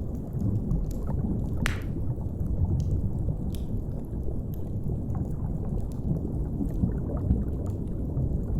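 Deep, muffled underwater ambience, a steady low rumble with gurgling water, under the scattered sharp pops of a crackling wood fire, one louder pop about two seconds in.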